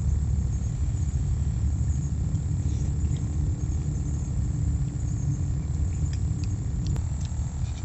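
Steady low rumble, with a few light clicks near the end.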